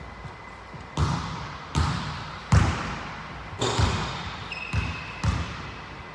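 A basketball being dribbled on a hardwood gym floor: about six loud bounces, spaced a little under a second apart, each echoing in the large hall. Brief high sneaker squeaks come in the middle.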